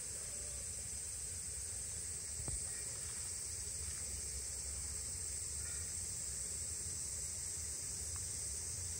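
Steady, high-pitched drone of insects in the summer grass, with a low rumble beneath it and one short click about two and a half seconds in.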